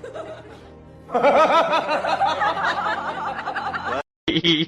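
Music playing with a person laughing over it, starting about a second in; it cuts off suddenly near the end.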